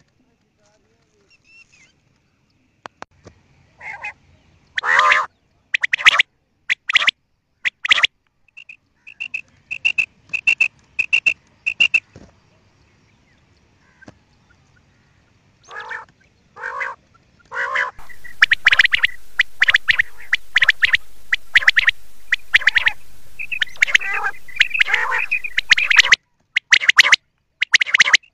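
Quail calling: short, sharp notes repeated in quick groups, with a run of clear, evenly spaced whistled pips, about two a second, around the middle. In the later part the calls sit over a steady recording hiss.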